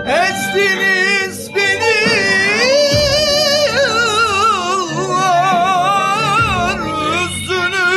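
A singer holds a long, ornamented vocal line with wide vibrato over instrumental backing, pausing briefly about a second and a half in.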